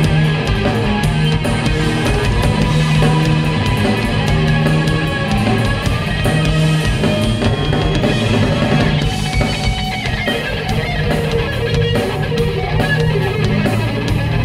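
Live rock band playing: electric guitar over bass guitar and drum kit, loud and steady with a fast, driving drum beat.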